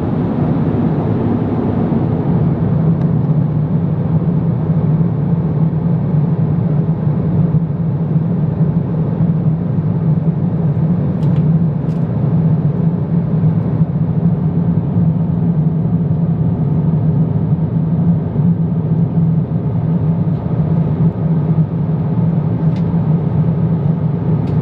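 Steady cabin noise of an Airbus A350-900ULR in cruise: an even, low rumble of engines and airflow heard from a window seat.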